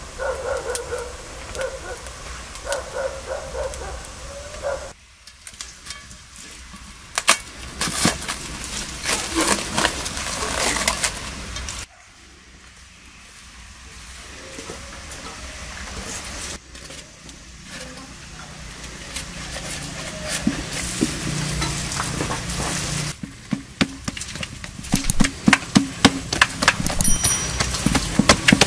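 Wood fire crackling in a mud oven, then bread dough being tipped onto a large metal tray and kneaded by hand. Near the end comes a quick run of slaps and presses, about three a second.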